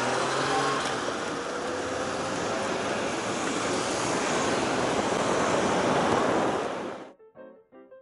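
Wind rushing over the microphone and street traffic while riding an electric scooter through town, with a rising whine in the first second as it pulls away. About seven seconds in, the noise cuts off and piano music begins.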